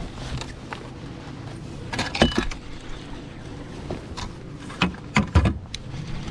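Irregular knocks and rattles of tackle and boat while a big largemouth bass is being played on the rod, a cluster about two seconds in and several more near the end, over a low steady hum.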